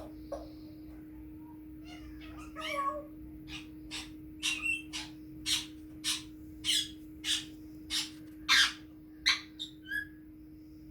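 Congo African grey parrot vocalizing: a brief wavering call about two seconds in, then a run of short, cough-like noisy sounds, roughly one every half second.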